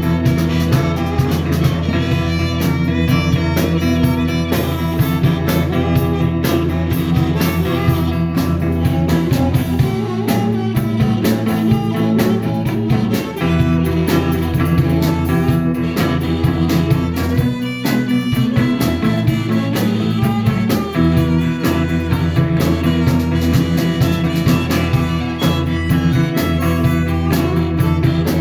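Blues band playing an instrumental passage between sung verses, with guitar and a lead instrument over a steady bass line.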